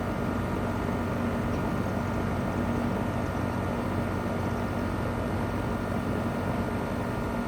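Goodman CPLE30 2.5-ton heat pump running steadily in cool mode: the condenser fan's rush of air over the steady hum of its Copeland reciprocating compressor.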